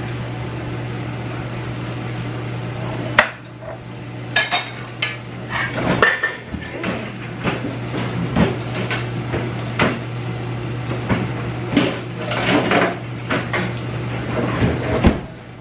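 Serving utensils clinking and scraping against pans and plates as food is dished up, with a sharp clank about three seconds in, over a steady low hum that cuts off near the end.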